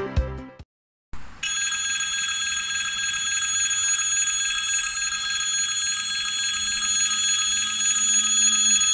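Railway level-crossing warning bell ringing continuously and steadily, high and metallic, starting about a second in after a snatch of music cuts off. It is the crossing's signal that a train is approaching and pedestrians must not cross.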